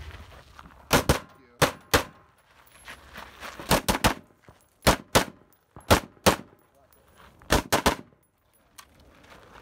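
AR-style semi-automatic rifle firing about a dozen shots, mostly as quick pairs, with short pauses between the pairs as the shooter moves from target to target.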